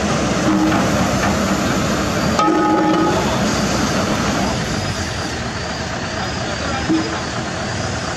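Heavy diesel equipment running steadily: the engines of a Kobelco SK200 excavator and a Fuso self-loader truck with its bed tilted for loading. A brief steady tone comes in about two and a half seconds in.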